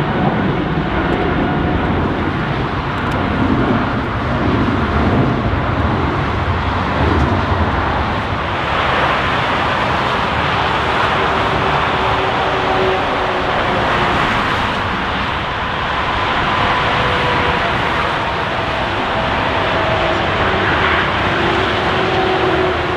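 Boeing 777 twin jet engines running with a loud, steady roar, carrying faint whining tones that slowly fall in pitch.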